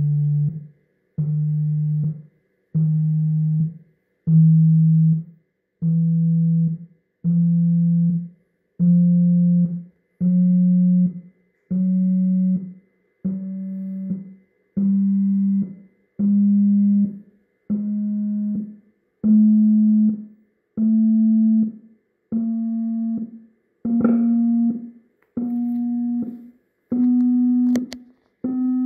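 Dayton Ultimax 18-inch subwoofer driver playing a stepped sine-wave distortion test at about 100 watts: a series of steady pure tones, each about a second and a half long with a short pause between, every step a little higher in pitch, so the tone climbs from a low hum to a higher drone.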